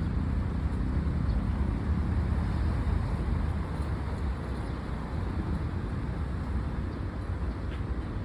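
Steady low rumble of a running vehicle engine, with an even hiss above it.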